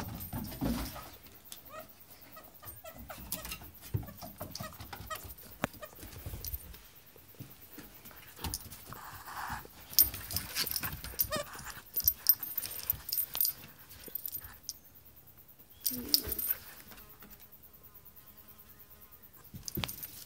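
A dog tugging and worrying at a soft toy that a person holds, with irregular scuffling, scattered sharp clicks and knocks, and brief dog sounds. It is loudest around the middle of the stretch and again a few seconds before the end.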